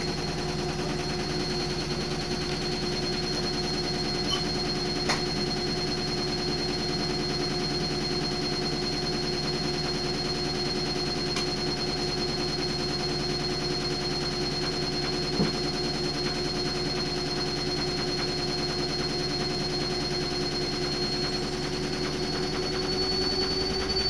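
Front-loading washing machine running its spin cycle: a steady motor and drum whine with a low hum, rising slightly in pitch near the end, and a couple of faint knocks. The machine is shaking hard enough to walk across the floor on its own.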